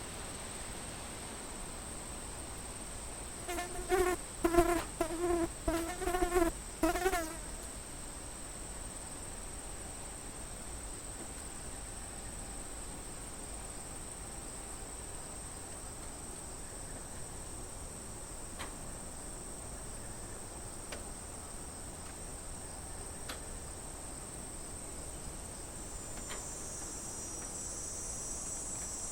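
Cicadas buzzing in a steady, high-pitched drone that swells slightly near the end. A few seconds in, a louder pitched call from another animal sounds about six times in quick succession over roughly four seconds.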